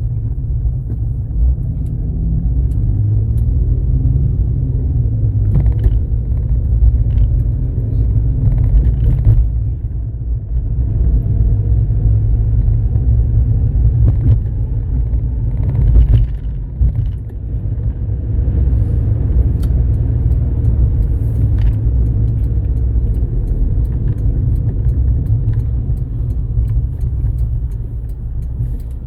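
Car driving, heard from inside the cabin: a steady low rumble of road and engine noise, with a few faint clicks.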